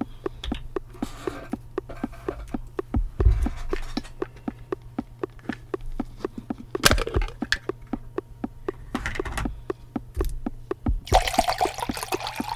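Water poured into a glass near the end, over a background track of rapid, evenly spaced clicking beats and a low steady hum; a single sharp knock about seven seconds in.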